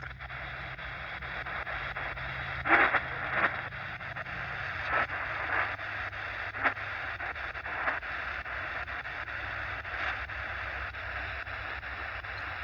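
Shortwave radio receiver hissing with band static, a steady rush broken by short crackles and faint blips of distant signal every second or two, over a low hum.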